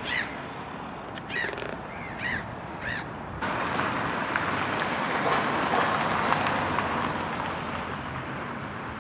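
Crows cawing, about five calls in the first three seconds, then an abrupt switch to a steady rushing noise.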